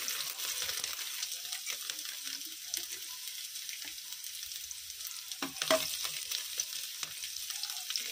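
Finely chopped garlic sizzling in hot oil with carom seeds in a pan while it is stirred: a steady high frying hiss. A few sharp clicks come about five and a half seconds in.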